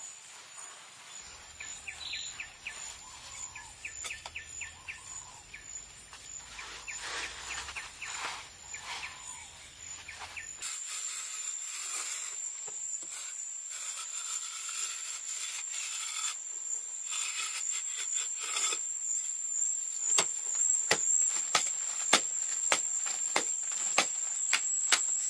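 Outdoor ambience: a steady high-pitched insect drone, birds chirping, and sharp knocks that come more often near the end, about two a second.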